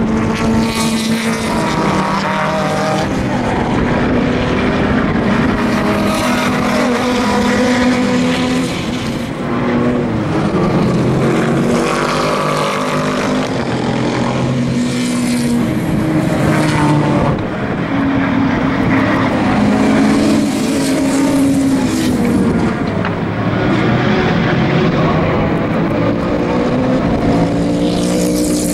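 Several sports and GT race cars passing one after another at racing speed. Their engines rev up and down through gear changes, overlapping, and grow louder every few seconds as each car goes by.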